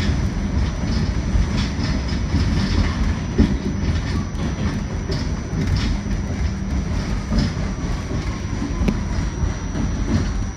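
R46 subway car running on elevated track, heard from inside the car: a steady rumble of steel wheels on rail with clicks as the wheels cross rail joints. A faint whine falls slowly in pitch near the end.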